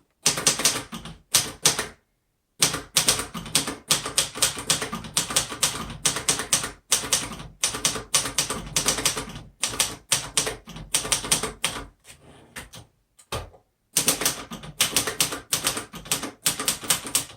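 A 1962 Royal Signet portable typewriter being typed on: quick runs of key strikes. There is a short pause about two seconds in and a lull with only a few scattered strikes about twelve seconds in.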